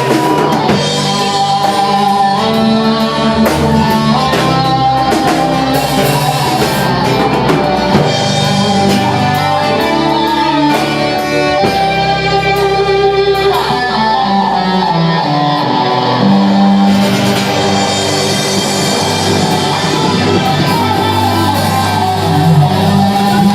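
A live rock band playing, with guitar and drum kit.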